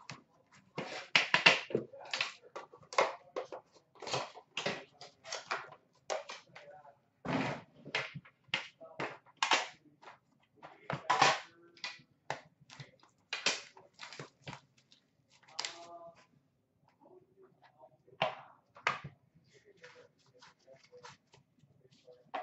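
A trading-card box being unpacked by hand: a quick, irregular run of clicks, taps and knocks of cardboard and the hard inner case as the box is opened and the case is handled and set down, thinning to scattered lighter taps about halfway through.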